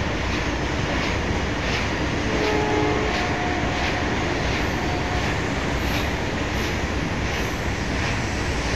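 Freight train of loaded open coal wagons rolling past with a steady rumble, its wheels clacking over the rail joints in an even beat of about one and a half clacks a second.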